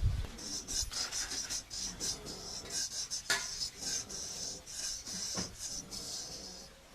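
Straight razor scraping over skin and stubble in a run of short, quick strokes, with a couple of sharper clicks in between.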